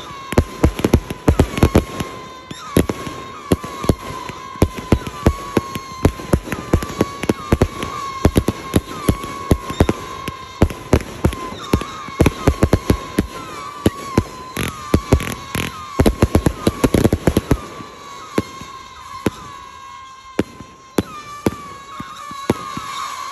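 Aerial fireworks firing in quick succession: a dense string of sharp cracks and bangs from crackling tails and bursts, with a high whistle coming and going. The shots thin out over the last few seconds.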